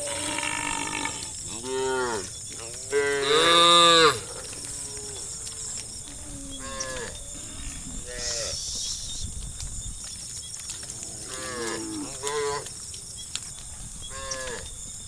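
Cows mooing again and again, each call swelling and falling in pitch; the loudest and longest call comes about three seconds in, with shorter, quieter moos after it.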